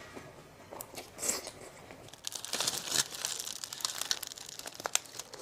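Plastic food packaging crinkling and rustling as it is handled, faint at first and then busier about two seconds in, with a few sharp clicks.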